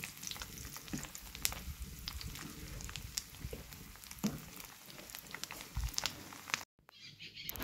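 Fish frying in hot oil: a faint steady sizzle with scattered pops and crackles, stopping abruptly about a second before the end.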